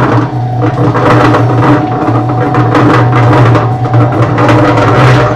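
Central Machinery 3.5 cubic foot electric cement mixer running on its first switch-on, the empty steel drum turning: a steady motor hum with continual rattling knocks on top.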